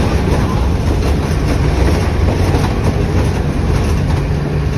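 Mercedes-Benz OF 1519 BlueTec 5 bus's diesel engine running, a steady low rumble.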